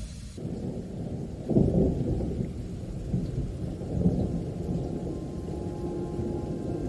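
Low, muffled rumbling noise with louder swells about one and a half and four seconds in.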